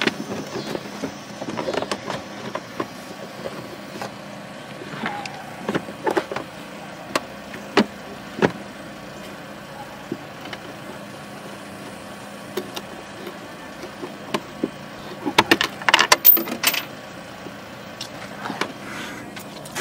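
Scattered clicks and knocks of a screwdriver and plastic engine-bay parts being handled, with a quick run of louder clicks about three-quarters of the way through.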